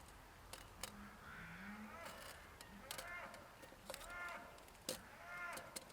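A dog whining in short, arched whimpers, three or four in a row about a second apart, with light clicks and taps between them.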